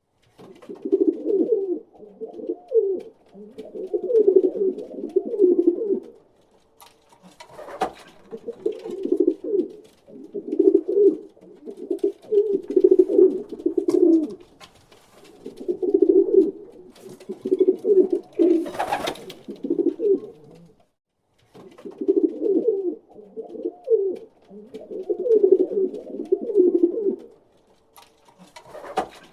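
Pigeon cooing, low burbling phrases repeated in runs with short pauses between. A few brief noises cut in, about a third of the way through, about two thirds through and near the end.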